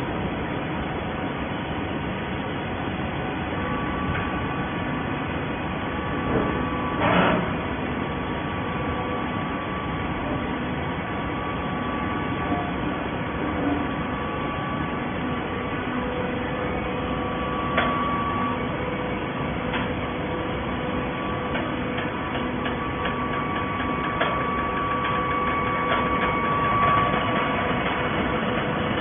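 Automatic horizontal hydraulic baler running: a steady machine hum with a faint held whine, a brief louder clatter about seven seconds in, and scattered clicks and knocks later on.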